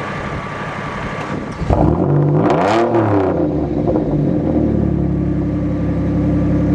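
Mazda 6s engine coming up about two seconds in, revved once up and back down, then settling to a steady idle. This fits a cold start after the car sat for months.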